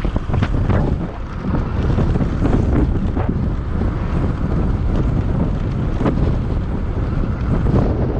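Wind buffeting the camera's microphone on a moving moped: a loud, steady rushing rumble.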